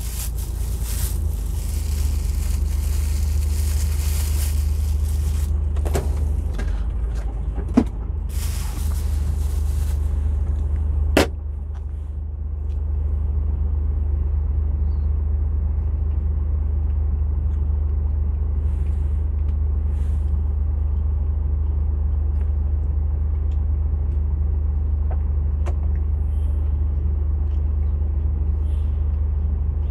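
Steady low drone of a heavy truck's engine and road noise heard from in the cab. A rushing hiss rides over it for the first ten seconds or so, and a sharp click sounds about eleven seconds in.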